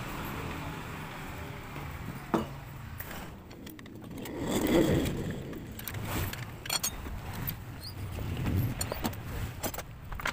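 Tire work on a spoked dirt-bike wheel: a steel tire lever prying the tire bead, clicking and scraping against the rim in a run of short taps in the second half. About halfway through, a broader sound swells up and fades, like a vehicle passing.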